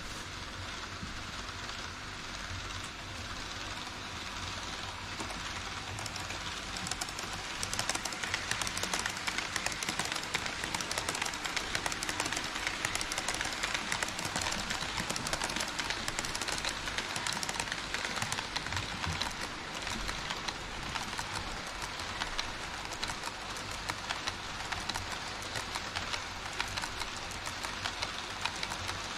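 HO scale model trains running over the track and truss bridge: a steady clatter of wheels on rails, dense with fast fine clicks, growing louder about seven seconds in as the trains pass close by.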